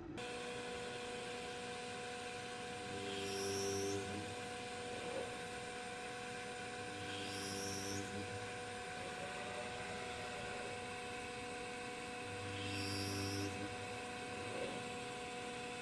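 Makera Carvera desktop CNC mill at work with a 30-degree V-bit: its belt-driven brushless spindle gives a steady whine. A louder whirring stretch of about a second comes roughly every four seconds, three times.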